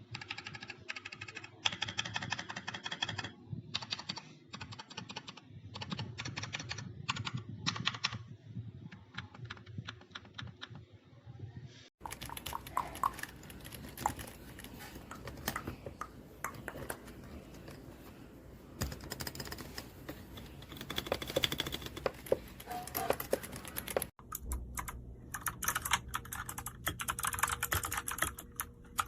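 Typing on a Rakk Pirah Plus 66 mechanical keyboard: fast, irregular key clacks. The sound changes abruptly twice, about a third and about two thirds of the way through.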